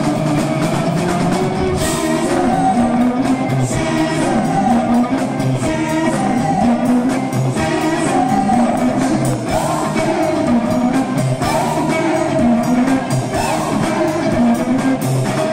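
Live rock band: a male lead vocal singing a melody over electric guitar and band.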